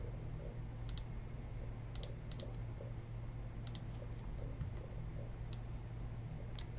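A handful of separate computer keyboard keystrokes, roughly one a second, some coming as quick doubles, over a steady low hum.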